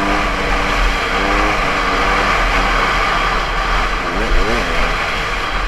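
Dirt bike engine running under throttle, held steady at first and then revving up and down in quick sweeps near the end, with steady wind rush on the helmet-mounted microphone.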